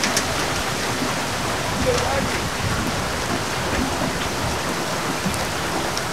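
Heavy rain falling steadily on pavement and open water, a constant hiss with a few sharp drop ticks close by.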